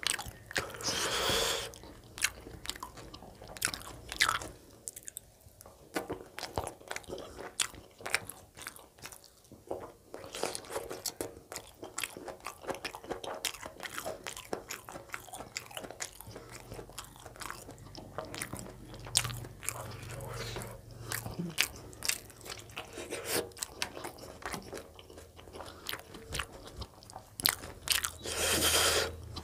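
Close-up eating sounds: chewing and biting of chicken gizzard curry and roti, with many small mouth clicks. About a second in and again near the end comes a longer rasp as a piece of roti is torn by hand.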